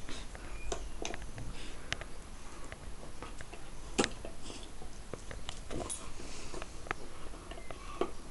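Two dogs, a Siberian Husky puppy and a Springador, play-mouthing face to face: soft sniffing and mouth noises with scattered light clicks, the sharpest about four seconds in.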